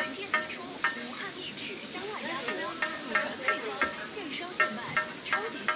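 Skewered fresh squid sizzling on a hot flat-top griddle as it is pressed and turned. Short ringing clicks come at irregular intervals, about two a second, over the steady sizzle.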